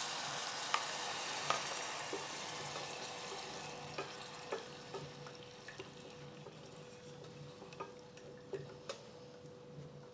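Water poured into hot sesame oil, minced garlic and ginger in a stainless saucepan: a sizzling hiss that fades steadily as the water cools the pan. A wooden spoon stirring clicks and scrapes against the pan now and then.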